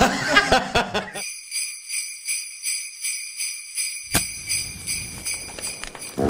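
Jingle bells shaken in a steady rhythm, a bright high ringing. Voices and laughter fade out under them in the first second.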